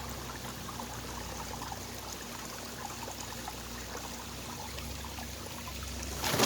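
Water from a backyard pond waterfall bubbling out and running steadily over the rocks down into the pond. A sharp knock sounds right at the end.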